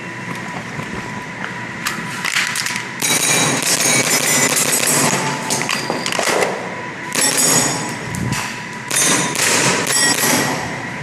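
Tokyo Marui G17 Gen4 gas blowback airsoft pistol firing in several quick strings of sharp cracks, with short pauses between the strings.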